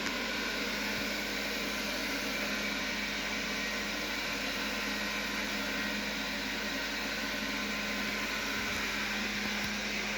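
Xiaomi Mijia LDS robot vacuum (MJST1S) running steadily: an even rush of air from its suction fan over a constant low hum.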